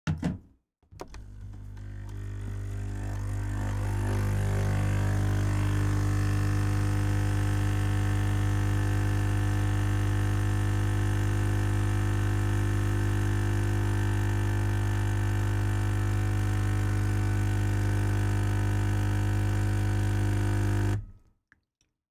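Coffee machine making a long coffee: a short click, then its pump starts humming a steady single pitch, swelling over the first few seconds, runs evenly for about twenty seconds and cuts off abruptly near the end.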